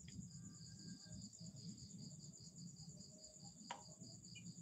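Faint insects chirping in a steady, rapid high pulse, about seven pulses a second, with a single sharp click late on.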